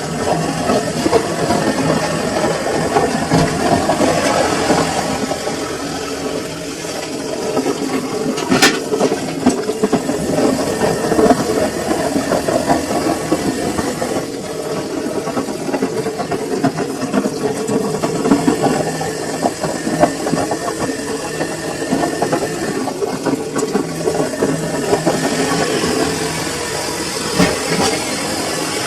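Samsung washing machine running a full load: a steady mechanical churning from the drum and motor, with one brief high click about a third of the way in.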